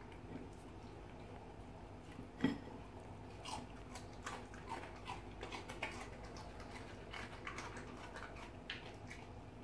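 A saluki eating cake crumbs from a plate on the floor: a scatter of small licking, chewing and smacking clicks, with one louder knock about two and a half seconds in.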